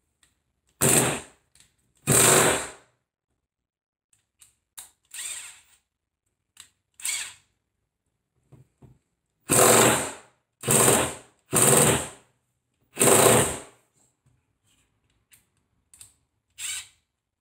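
Cordless power drill run in short bursts, each under a second, against a tight Torx door-hinge bolt: six loud runs and several brief fainter blips. The bolt is too tight and does not come out.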